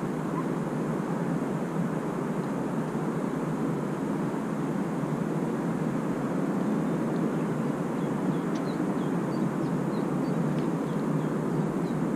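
Steady outdoor background rush, with a few faint, short, high chirps between about eight and eleven seconds in.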